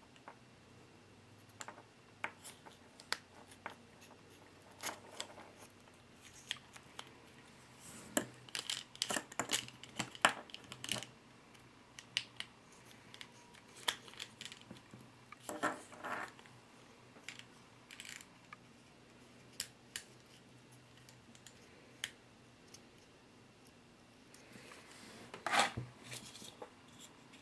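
Small plastic and metal parts of an HSP Pangolin RC crawler's front axle, the drive shafts with their bearings and the axle housing, clicking, ticking and scraping against each other as they are handled and fitted together. Light, scattered clicks, bunched about eight to eleven seconds in, with a few short scrapes.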